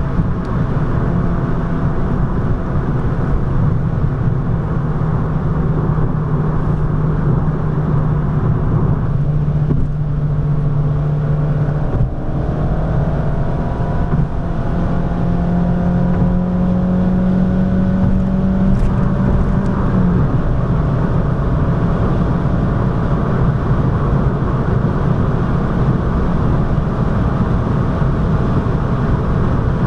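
Abarth 595 Competizione's 1.4-litre turbocharged four-cylinder engine pulling at high speed, heard from inside the cabin over heavy wind and road noise. The engine note breaks briefly about twelve seconds in and again about twenty seconds in at gear changes, rising in pitch between them as the car accelerates in fourth, then pulling on in fifth.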